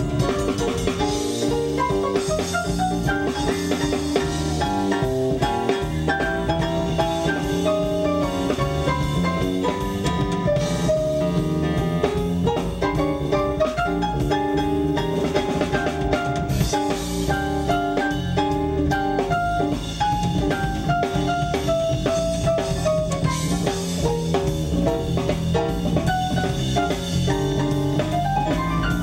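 A live blues band playing an instrumental B-flat blues: drum kit with snare, bass drum and rimshots keeping the beat under keyboard and electric guitar lines.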